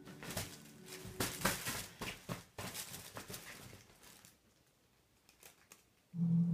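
Fabric cat tunnel rustling and crinkling in quick irregular bursts as a Sphynx kitten paws at and pounces on it, dying down after about four seconds. A steady low hum starts suddenly near the end and is the loudest sound.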